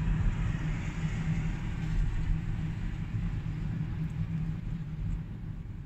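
Steady low rumble of engine and tyre noise heard inside a moving car's cabin.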